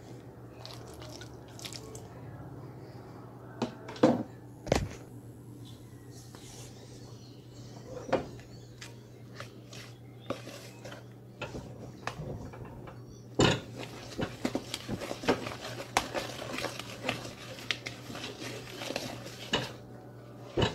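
A spoon stirring thick brownie batter in a large mixing bowl, knocking and scraping against the bowl: a few separate knocks in the first half, then quick repeated scrapes and taps over the last third.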